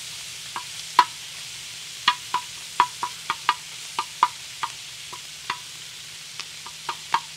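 Chopped bacon sizzling on a FIREDISC steel plow-disc cooker, with metal tongs giving irregular sharp clicks and taps against the pan as the bacon is tossed.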